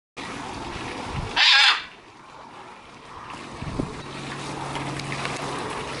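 Blue-and-yellow macaw giving one short, loud, harsh squawk about a second and a half in, over steady background noise. A low steady hum comes in at about four seconds.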